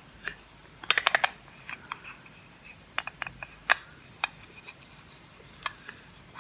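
Sharp clicks and taps of a package being handled and opened: a quick run of about seven clicks about a second in, then scattered single clicks.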